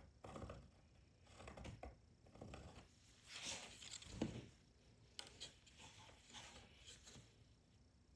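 Faint scratching and rustling of a pencil tracing curves around a template on a redwood board, with a brief light knock about four seconds in as the pieces are handled.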